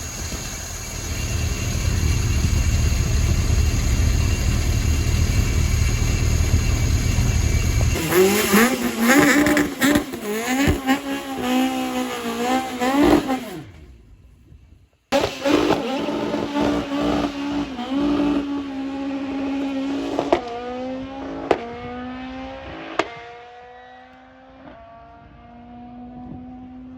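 Ford Escort Mk2 drag car's Millington Diamond four-cylinder race engine. A loud low rumble for about eight seconds gives way to hard revving, pitch climbing in steps between gear changes. After a brief break the engine is heard again accelerating through several upshifts, fading as the car pulls away.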